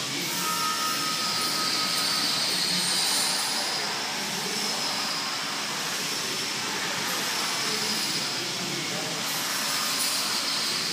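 Steady mechanical whirr with a high, wavering whine from a layflat oversize sign's powered lifting mechanism as it raises the sign from flat, with a brief steady tone about half a second in.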